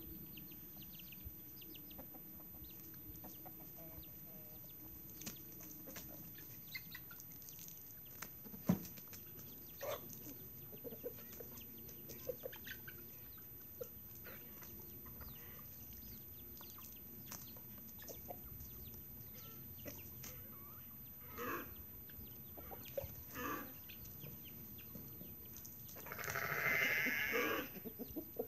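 Chickens clucking and calling now and then, with one louder, longer call of about two seconds near the end.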